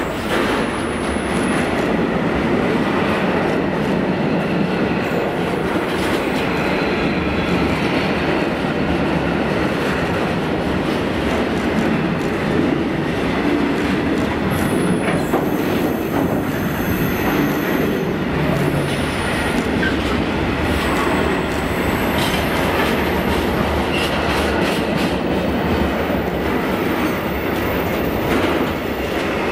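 Freight train of covered bogie wagons running past at speed: a steady, loud noise of steel wheels on the rails, with a few faint high squeals about halfway through.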